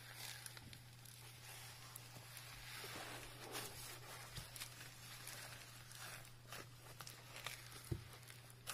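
Slime loaded with foam microbeads being kneaded and pressed by hand: faint crackling and rustling of the beads with soft squishes, a few sharper crackles near the end, over a steady low hum.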